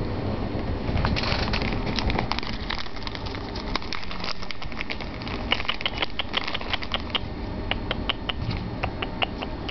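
Siamese cat eating a snack close up, its mouth making a run of sharp, wet clicking smacks that settle into about four a second in the second half.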